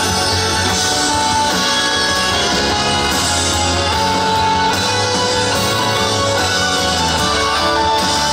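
Rock music led by guitars, playing steadily without vocals.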